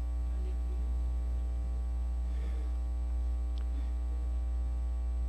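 Steady low electrical mains hum with a ladder of overtones, running at an even level, with only faint room sounds above it.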